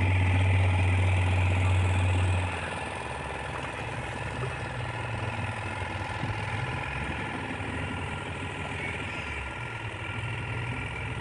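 Motorboat engine running steadily as the boat cruises. A deep, loud drone stops suddenly about two and a half seconds in, leaving a quieter, even engine hum.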